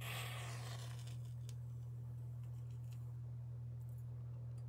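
A short hiss that fades over about a second as a small broken-off nib is lit in a candle flame, followed by a few faint clicks, over a steady low hum.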